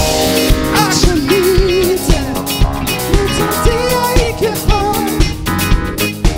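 Live rock band playing a song: a singer's voice over electric guitars, keyboard and a drum kit keeping a steady beat.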